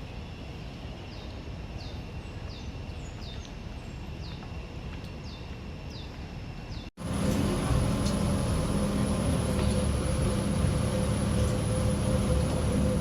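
Steady outdoor background rumble with a run of short, quick falling chirps, then after an abrupt cut about seven seconds in, a louder steady mechanical hum with a constant high whine.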